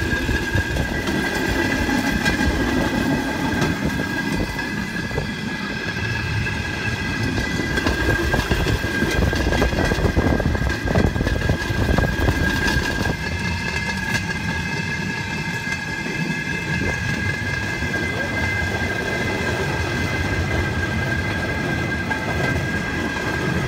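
Handmade pedal-powered rail bike rolling along railroad track: its wheels clatter and rattle on the rails without a break, over a steady high-pitched whine.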